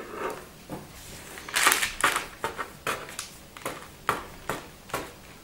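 Serrated knife sawing through raw bread dough down to the baking paper beneath: a run of short scraping strokes, loudest about one and a half seconds in.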